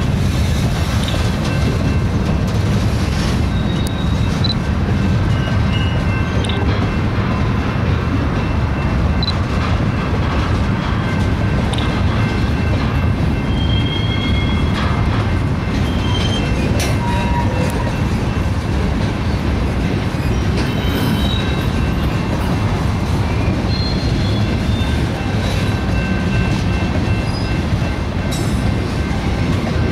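Freight train cars rolling past at a steady pace, gondolas loaded with railroad ties giving way to tank cars: a continuous low rumble of steel wheels on rail, with brief high squeaks of the wheels now and then.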